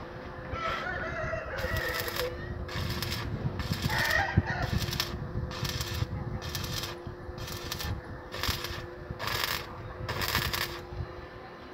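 Electric arc welding on steel square tubing: the arc crackles in short bursts, about one every second, as the welder lays stitch welds, over a steady electrical hum. A rooster crows twice in the background, near the start and about four seconds in.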